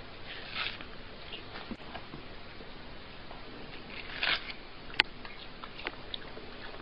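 Cat biting and chewing watermelon flesh: scattered wet smacks and crunches, with a louder crunchy bite a little past four seconds and a sharp click about five seconds in.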